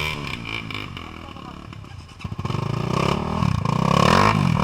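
Dirt bike engine revving up and down, quieter at first and louder from about two seconds in.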